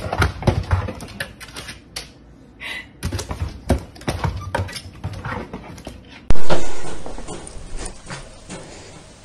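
A dog's claws and paws clattering and tapping rapidly against a door's clear window panels as it stands up and paws at the door. About six seconds in, a sudden loud sound that fades over a couple of seconds.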